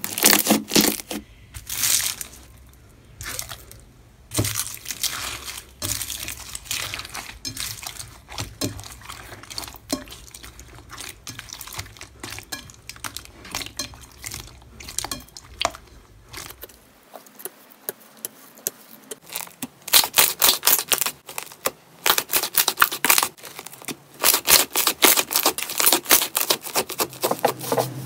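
Hands squeezing, poking and pressing slime: a run of wet clicks, pops and squelches. About twenty seconds in, the crackling gets denser and louder.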